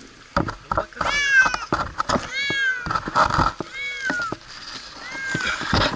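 A cat stranded high in a tree meowing, four drawn-out meows about a second and a half apart, each falling in pitch at its end. Rustling and knocking as it is grabbed run between the calls.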